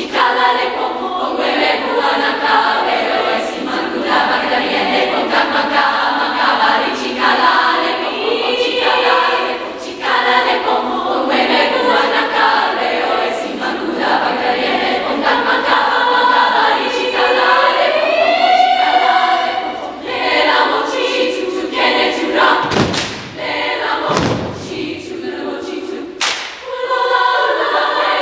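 Girls' choir singing in many parts, with a couple of sliding, swooping vocal lines. Near the end, a few loud thumps cut through the singing.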